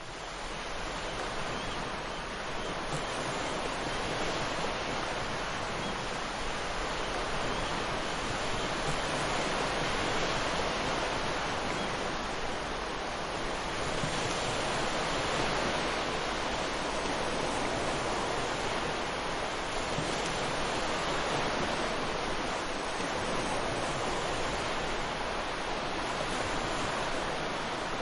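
Ocean surf: a steady wash of breaking waves with gentle slow swells in loudness.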